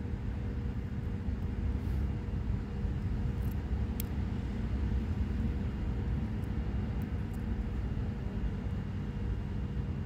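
Steady low mechanical rumble with a faint steady hum, and one sharp light click about four seconds in.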